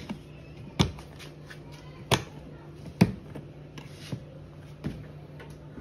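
Hard plastic rifle case being handled: about five sharp clicks and knocks spaced roughly a second apart, the loudest about three seconds in.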